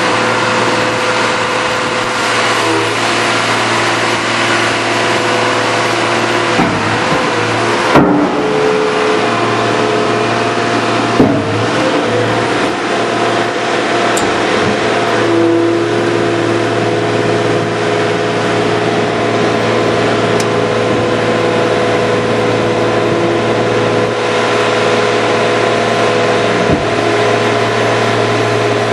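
A Sierra RB 6000 baler/logger's 5.9-litre six-cylinder Cummins turbo diesel runs steadily, with a constant low hum. Over it come a few sharp knocks; the two loudest are about 8 and 11 seconds in.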